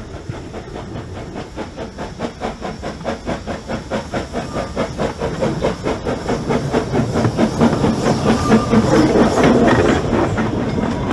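Narrow-gauge saddle-tank steam locomotive working a train of wagons past at close range: a fast, even run of exhaust chuffs from the chimney, with steam hissing, getting louder as it draws level in the last few seconds.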